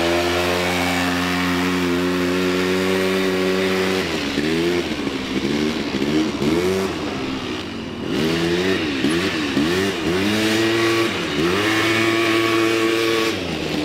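Sport quad bike's engine held at steady high revs for about four seconds, then revved up and down again and again as the throttle is worked to hold the quad up on its back wheels. It cuts off suddenly at the end.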